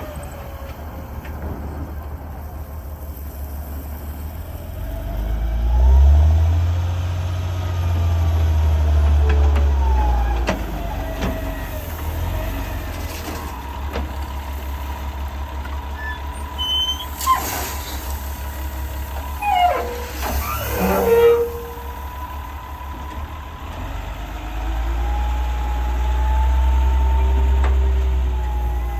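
Heavy diesel earthmoving machine working: a deep engine rumble that swells under load about five seconds in and again near the end, with gliding whines and a few short squeals and knocks around the middle.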